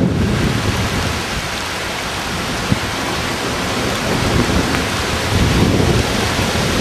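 Severe thunderstorm line arriving: rain and gusting storm wind make a steady hiss over an uneven low rumble.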